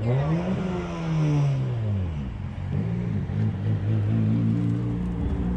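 A car engine revs up and falls back, then gives a second, shorter rev about two seconds in. After that, engines run steadily at a lower pitch as the cars roll past.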